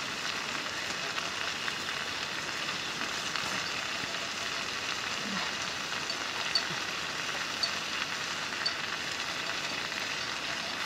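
Nettle leaves sizzling in a pot over a wood fire: a steady hiss, with a few faint pops in the second half.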